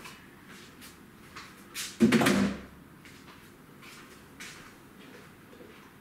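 A loud clatter of kitchen things being handled or shut, about two seconds in and lasting about half a second, among a few light clicks and knocks.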